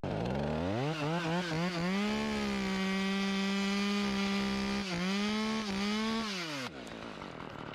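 Chainsaw revved up with a few quick throttle blips, then held at a steady high pitch for a cut of about three seconds. It dips briefly about five seconds in and winds back down near the end.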